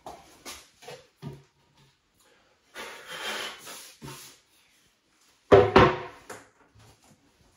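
A wooden vanity cabinet being handled: a few light knocks, then a scraping rub for about a second and a half, then a heavy thump about five and a half seconds in, the loudest sound, as the cabinet is tipped up and set down on end.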